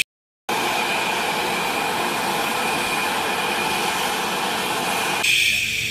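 Jet engines of a Citilink Airbus A320 running at taxi power: a steady roar with a thin whine on top, starting about half a second in after a brief silence. Shortly before the end the sound turns brighter and hissier.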